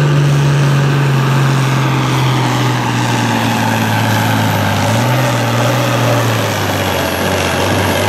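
International Harvester farm tractor's diesel engine running hard under full load as it drags a weight-transfer sled. The engine note slowly sags, picks up briefly about five seconds in, then sags again as the sled pulls it down.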